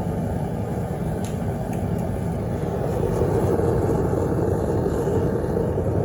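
Propane foundry furnace burner running with a steady roar of gas flame, growing louder about three seconds in.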